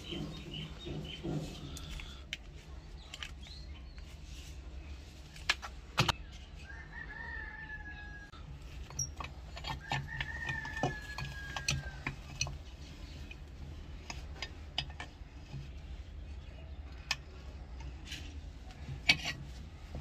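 Sharp metal clicks and taps from hand tools working on a rusty revolver frame clamped in a bench vise. A bird calls twice in the background, each call drawn out for about a second and a half.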